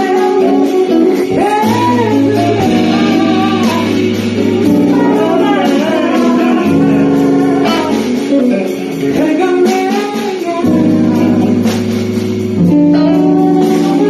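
Live band music: a singer's voice gliding over sustained guitar and bass chords.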